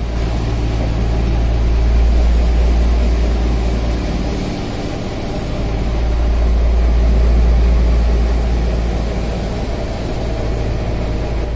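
A fishing boat's engine running steadily under way, a loud low drone, with the rush of wind and churning water over it that swells and eases a couple of times.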